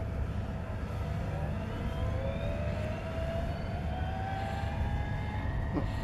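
A distant engine whine that slowly rises in pitch over several seconds, over a steady low rumble.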